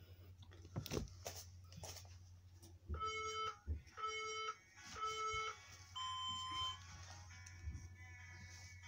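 Workout interval timer counting down: three short beeps about a second apart, then a longer, higher-pitched beep about six seconds in that signals the start of the next minute's round. A few sharp knocks come earlier, over a steady low hum.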